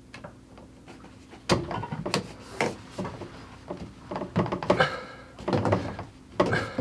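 Handling noise from a flexible plastic water supply pipe being bent and worked into a fitting: irregular knocks, rubs and clatter, starting about a second and a half in.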